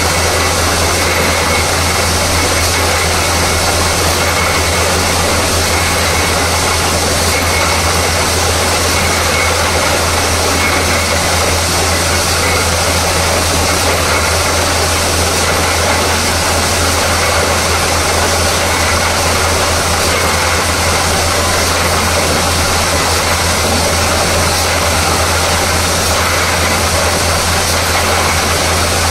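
Borewell drilling rig running steadily: a loud, unbroken machine noise with a strong low drone under a wide hiss.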